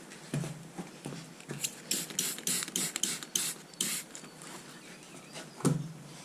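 Trigger spray bottle squirting cleaner, about eight short hissing squirts in quick succession, with a knock or two of handling before and after.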